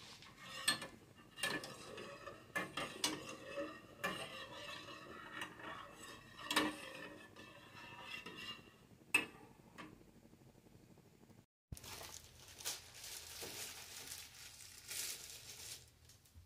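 Metal spoon stirring milk in a stainless steel saucepan, repeatedly scraping and clinking against the pan with short ringing tones. After a sudden break the sound turns to a softer, steady hiss with a few light clicks.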